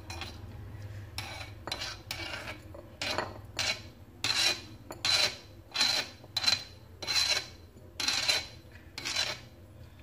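A steel spoon scraping crushed bird's eye chilli and shallot paste off a stone grinding slab: a dozen or so short rasping strokes about every half second, louder from about three seconds in.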